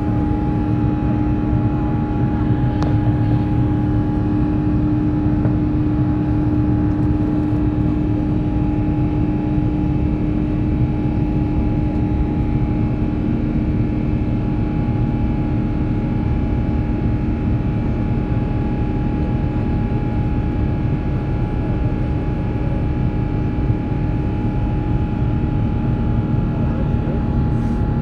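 Cabin noise inside an Airbus A350 in flight, heard from a window seat by the wing: the steady rush of its Rolls-Royce Trent XWB turbofan and the airflow, with a constant low hum.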